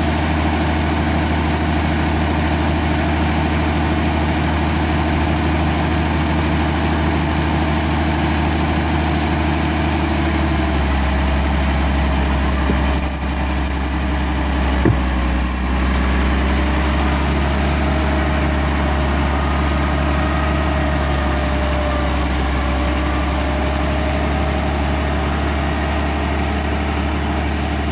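Massey Ferguson 2680 tractor's diesel engine running steadily, its note changing about ten seconds in as it takes up load to turn a mud-stuck rear wheel onto a wooden pole chained to the tyre for grip. A single sharp knock about fifteen seconds in.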